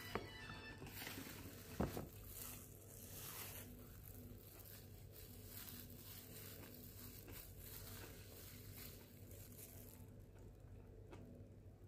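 Faint eating and handling sounds: a plastic-gloved hand crinkling as it tears apart a cooked fish on a plate, with a single sharp click about two seconds in.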